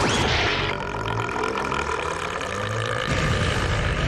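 An exaggerated cartoon burp: a long, low, rumbling belch that swells twice, blended with a rushing wind sound, as though the burp is blasting through the camp.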